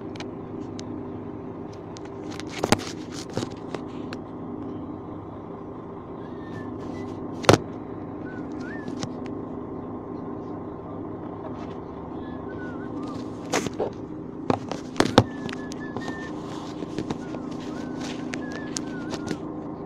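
Construction site sound: a steady low hum with irregular sharp knocks of hammering, a few of them loud, over birds chirping.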